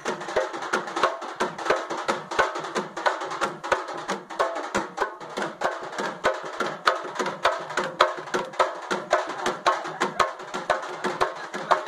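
Hand-held frame drums beaten with sticks in a fast, steady rhythm of sharp strokes, several a second, with a dense pitched layer of sound beneath the beat.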